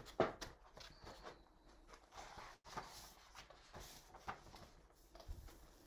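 Faint handling noises: scattered soft clicks and rustles as things are moved about, with one sharper click just after the start.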